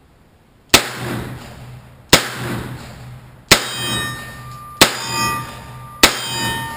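Taurus six-shot .357 Magnum revolver fired five times in steady succession, about a second and a half apart. Each shot is followed by a metallic ringing tone and a fading echo.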